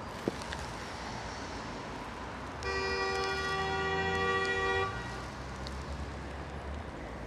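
A vehicle horn sounded once and held steady for about two seconds, a little under three seconds in, over a steady low rumble of street traffic.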